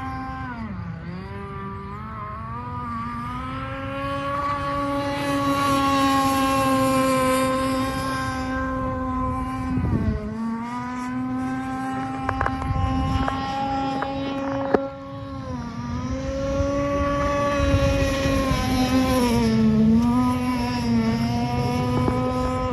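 Gas RC boat's TK 27 Evo two-stroke engine running at speed, a steady high buzz. Its pitch dips and climbs back several times as the throttle is eased and reopened, and a few sharp clicks come through in the middle.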